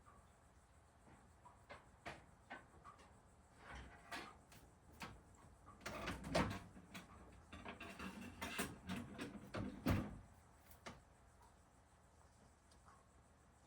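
A run of household clicks, knocks and clatter, busiest and loudest between about six and ten seconds in.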